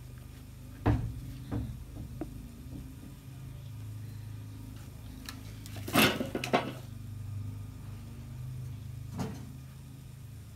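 Hands folding and rolling thin pastry wrappers on a wooden board: a few short knocks and rustles, the loudest cluster about six seconds in, over a steady low hum.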